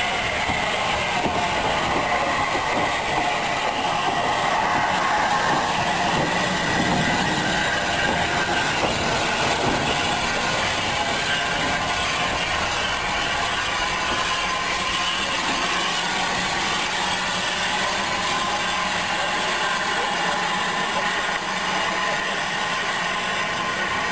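Southern Railway steam locomotive No. 1638, coupled to a second steam engine, moving slowly past at close range: steady wheel and rail noise with faint squealing tones.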